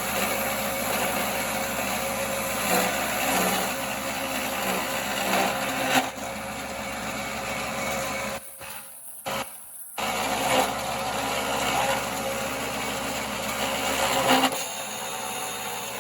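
1939 Pow-R-Kraft wood lathe running with a turning tool cutting into spinning firewood: a steady motor hum under a rough scraping hiss. The sound cuts out briefly twice about halfway, and the cutting noise drops away near the end, leaving the quieter running lathe.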